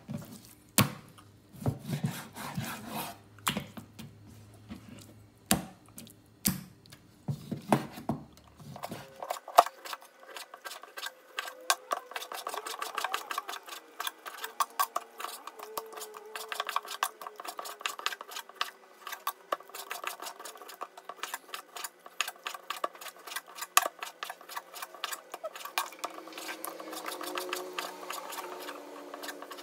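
Kitchen knife slicing raw chicken breast on a wooden cutting board: the blade taps the board in many quick, irregular strokes.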